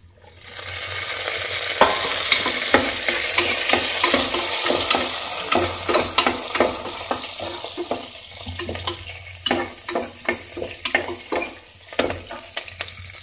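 Green chillies hitting hot oil and onions in a pressure cooker, sizzling loudly as they go in and easing off over the following seconds as they are stirred, with a spoon clicking and scraping against the pot.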